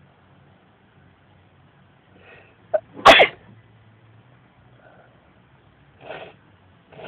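A man sneezes once, loudly, about three seconds in, after a short intake of breath. Two softer short sounds follow near the end.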